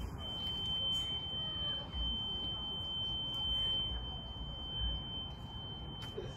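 A single steady high-pitched electronic tone, like a long continuous beep, held at one pitch without change, over a low gusty rumble of wind on the microphone.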